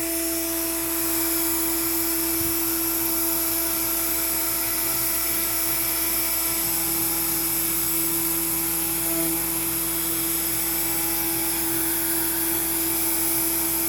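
Makita router on a CNC machine, spinning at about 18,000 rpm with a 1/4-inch two-flute upcut bit. It makes one steady whine over hiss as it cuts pine at a slow 60 inches per minute feed.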